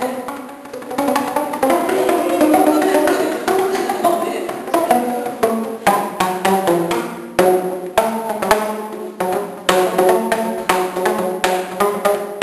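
Homemade PVC tube drums played as a melody: a quick run of hollow, pitched knocks at changing pitches, several strikes a second.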